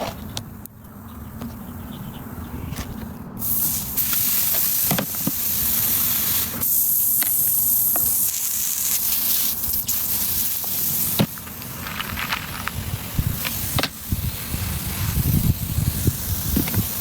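Air hissing, switching on sharply about three seconds in and running on steadily, over a low rumble with a few sharp clicks.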